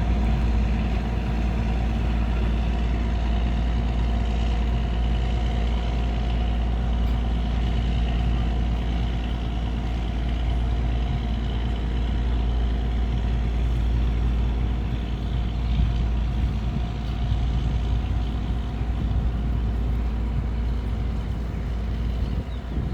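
A boat's engine running steadily: a deep, even rumble with a constant drone over it that doesn't change in pitch.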